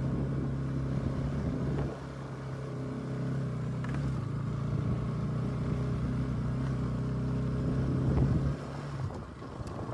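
Bajaj Pulsar NS200's single-cylinder engine running steadily under load as the heavily loaded motorcycle climbs a rough, broken road, the note dropping away about eight and a half seconds in as the throttle closes.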